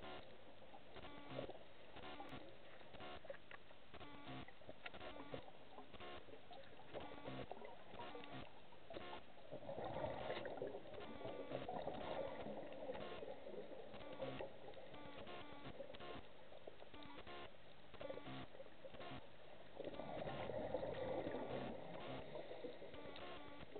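Muffled underwater sound from a diver's camera: a scuba diver's exhaled bubbles rise twice, about ten seconds apart and each lasting two to three seconds, over a steady run of faint clicks and crackles.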